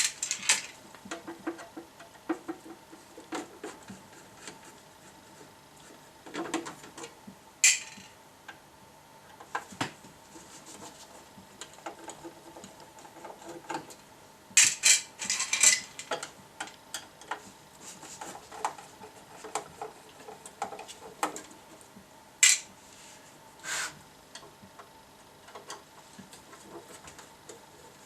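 Tools and small metal parts clicking and clinking while being handled during work on a power supply, in irregular scattered knocks with a busy cluster about halfway through.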